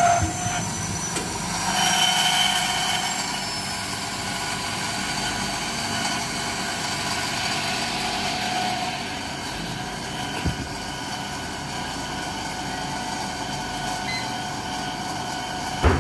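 Steelco VS6/2 steam sterilizer running its cycle: a steady hiss with several steady machine tones from its pipework. A sharp knock comes just before the end.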